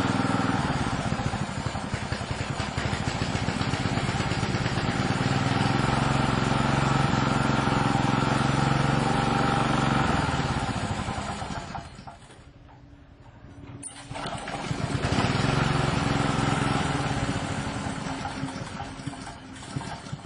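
Small single-cylinder Alkom engine running, its speed rising and falling; about twelve seconds in the revs sag almost to stalling, then it picks back up and settles to a lower speed near the end.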